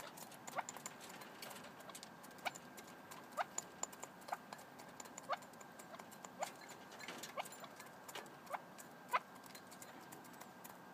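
Red-legged partridges pecking pellet feed from a bowl: quick, irregular small taps and clicks. Short downward-gliding call notes come roughly once a second throughout.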